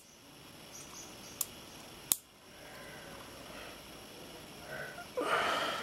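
Handling of a small handmade toy droid close to the microphone: a few sharp clicks, two of them just under a second apart, over faint rustling, then a louder brief rustle near the end.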